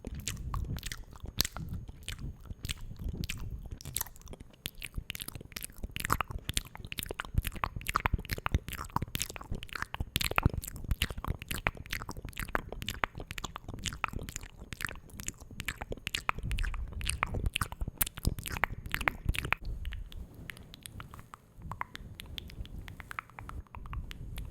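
Close-miked ASMR mouth sounds: an irregular stream of small wet clicks and smacks, several a second.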